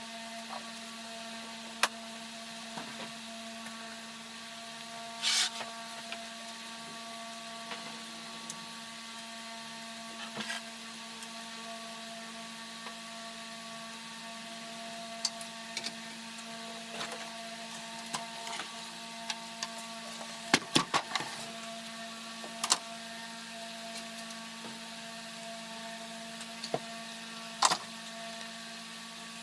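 A steady mechanical hum with a fixed pitch, broken by scattered sharp clicks and knocks. The knocks come thickest about two-thirds of the way through.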